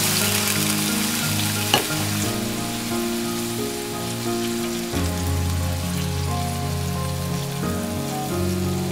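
Food sizzling as it fries in a pan, with one sharp click a little under two seconds in. Soft background music with held notes plays underneath.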